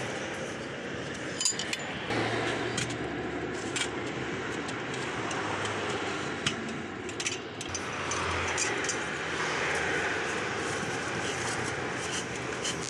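Scattered metallic clinks and clanks of a steel lever bar working against a welded steel frame as a tyre's bead is broken by hand, over a steady background noise.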